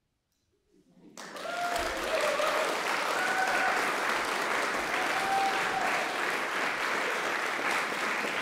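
Audience applause after a moment of silence: clapping starts about a second in, swells quickly and holds steady, with a few short cheers from the crowd.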